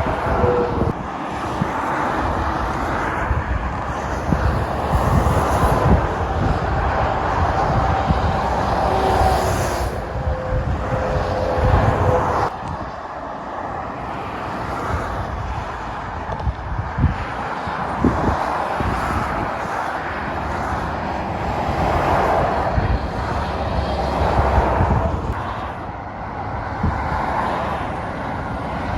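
Heavy motorway traffic including lorries, a continuous rush of tyres and diesel engines that swells and eases as vehicles pass.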